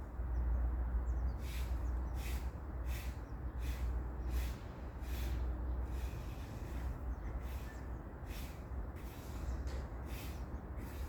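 Short, high, hissy calls of small birds repeating about once or twice a second, with a few faint high chirps, over a steady low rumble of wind on the microphone.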